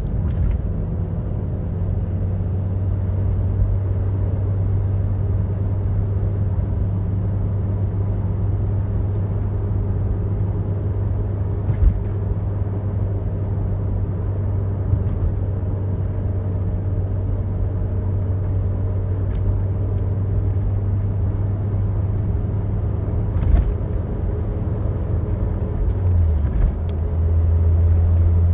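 2010 Ford Focus RS driving, its turbocharged five-cylinder engine and the road giving a steady low drone that drops a little in pitch and grows louder near the end. A faint high whine comes in for several seconds midway, with a few light knocks. The car has a strange noise when driving that the owner cannot place.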